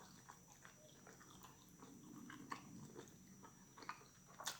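Faint close-up chewing of barbecued turkey leg meat: soft wet mouth smacks and small clicks at an irregular pace, with a sharper smack near the end.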